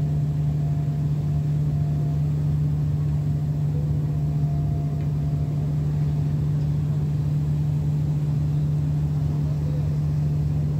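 Steady low drone of a passenger ship's twin Cummins diesel main engines heard on board, a constant deep hum that holds an even level throughout.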